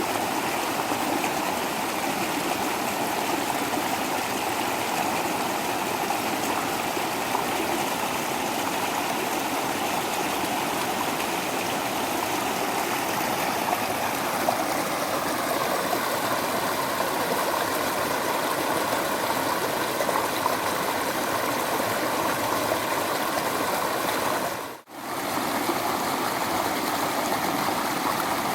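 Waterfall: a steady rush of falling water, which briefly drops out and comes back about a second later near the end.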